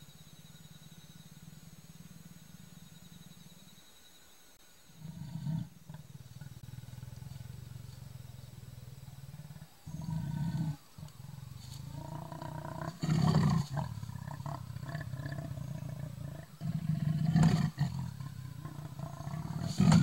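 Male leopard growling low and steadily at its own reflection, breaking into louder rasping roars about every three to four seconds. The last one comes as it lunges at the mirror.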